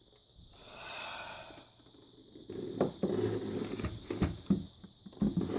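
Objects being handled and set down on a surface: a soft swell of rustling noise about a second in, then a run of light knocks, taps and rustles, over a faint steady high whine.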